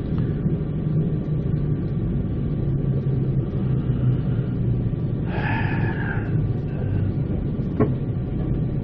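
Steady running rumble of the Spirit of the Outback passenger train, heard from inside the carriage as it travels along the track.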